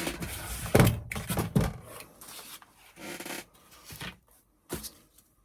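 Craft supplies being rubbed, scraped and knocked about on a work table while someone rummages for something: a run of irregular scrapes and light knocks, thickest in the first couple of seconds and thinning out toward the end.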